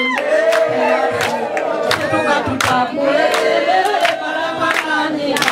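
A crowd singing together in unison, many voices holding a melodic chant, with sharp regular beats keeping time about two to three times a second.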